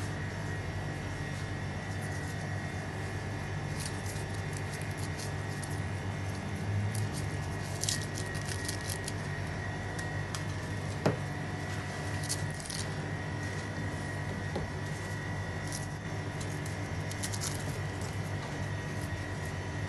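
Steady low machine hum with a faint high whine, broken by several short bouts of crinkling from a foil-paper butter wrapper being handled, and a single sharp knock about eleven seconds in.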